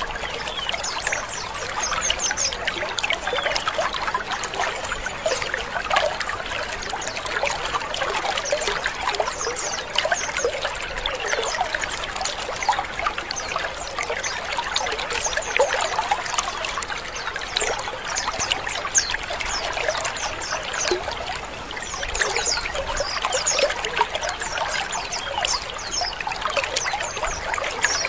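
A colony of white-eyes (pleci) chattering together, a dense, unbroken stream of overlapping short chirps mixed with harsh 'ngrik' calls.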